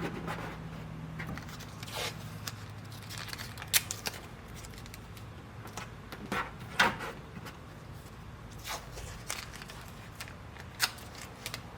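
Tape being pulled and torn off in short strips, with scattered clicks and light knocks from handling the fender panel; the sharpest strokes come near the middle.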